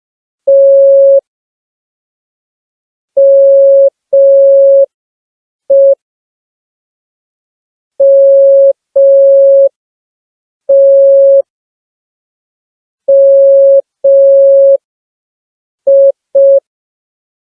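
Morse code (CW) beeps from a smartphone Morse code app: one steady mid-pitched tone keyed on and off in slow dashes and dots, with long, uneven gaps between letters, as a beginner sends or practises.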